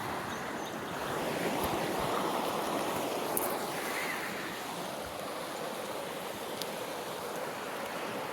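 Creek water rushing steadily, swelling slightly about a second in, with a few faint ticks.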